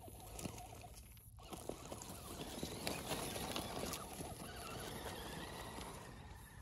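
Small RC crawler trucks driving over rough ground: a dense crunching and clicking of tyres on stones and grit, with the rattle of the trucks' drivetrains. It builds up about a second and a half in, is loudest around the middle, and eases off near the end.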